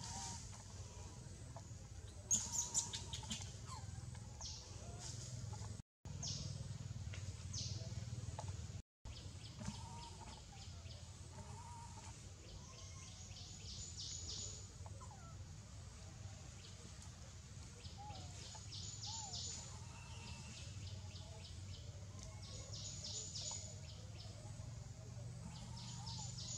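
Birds chirping in quick, high-pitched repeated trills every few seconds, with a few short sliding calls, over a steady low outdoor background rumble. The sound cuts out completely for an instant twice.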